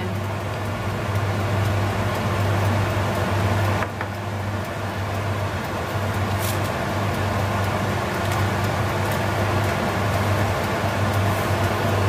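Steady low hum of a running electric appliance motor, unchanging throughout, with a light knock about four seconds in.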